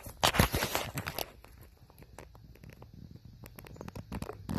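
Close rough rustling and scraping, loudest for about a second near the start, then faint scattered rustles and clicks.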